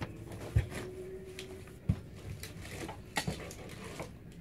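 Dull thumps and light knocks from someone moving about right next to the phone on the floor: two sharp thumps about half a second and two seconds in, then a few lighter knocks near the three-second mark.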